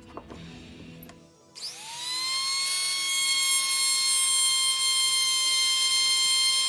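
High-speed rotary tool switched on with a click, spinning up with a quick rising whine and then running at a steady high pitch without load.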